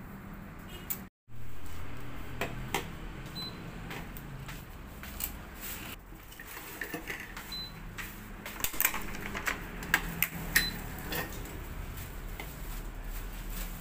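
Tennis racket being strung on a HEAD electronic stringing machine: scattered sharp clicks and rattles of the clamps, turntable and string being handled, thickest about nine to eleven seconds in. The sound cuts out briefly about a second in.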